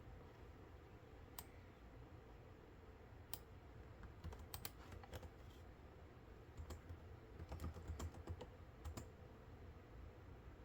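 Computer keyboard keys pressed slowly and irregularly: single keystrokes and a few short clusters, over a faint steady low hum.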